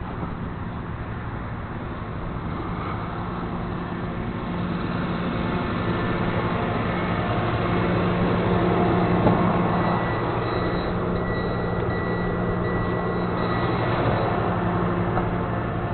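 Flatbed tow truck's engine running, growing louder from about four seconds in to a peak near nine seconds, then holding steady.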